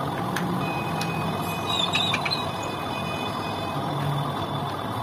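Metal lathe running, spinning a spoked motorcycle wheel mounted by its hub, with a steady mechanical whir and a thin high whine. A few short squeaks come about two seconds in.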